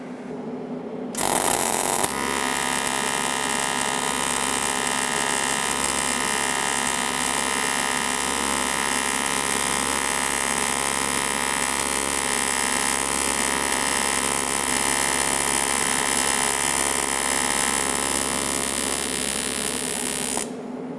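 AC TIG welding arc on aluminium at 60 Hz with a balled pure (green) tungsten, no pulse. A short hissing crackle as the arc strikes about a second in, then a steady electric buzz that cuts off abruptly shortly before the end.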